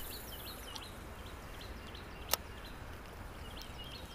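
Small birds chirping, short calls repeated again and again, over a steady outdoor hiss, with one sharp click a little past two seconds in.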